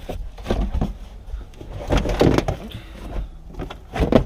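Knocks, rattles and scraping of car interior trim being yanked and pried loose, with heavier thuds about two seconds in and near the end.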